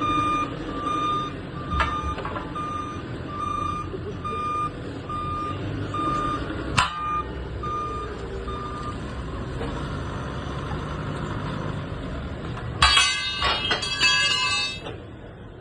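A heavy machine's back-up alarm beeping steadily, about three beeps every two seconds, over a running engine; the beeping stops about nine seconds in. A sharp knock comes about seven seconds in, and near the end there is a cluster of loud, ringing metal-on-metal clanks.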